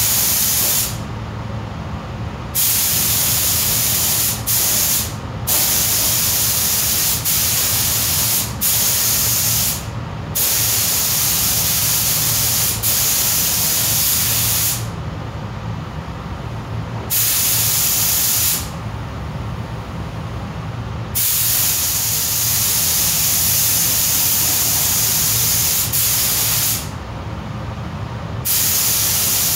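Compressed-air spray gun hissing in trigger pulls of one to several seconds, with breaks of a second or two between them, over a steady low hum.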